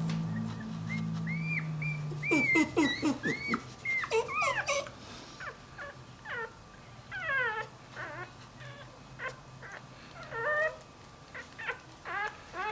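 Newborn puppy whimpering and squealing in many short, high cries that rise and fall, loudest a couple of seconds in. A low steady hum sounds underneath and fades out about two seconds in.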